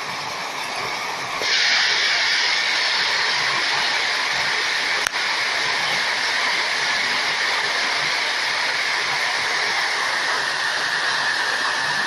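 Heavy rain from a hailstorm pounding steadily, growing louder about a second and a half in. A single sharp tick about five seconds in.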